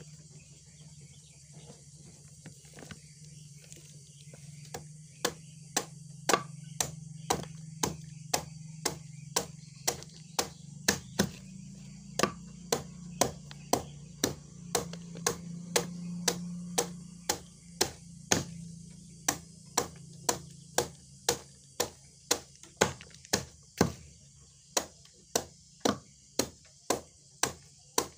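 A knife chopping plant material for poultry feed against a wooden board: a steady run of sharp chops, about two a second, starting about five seconds in, over a low steady hum.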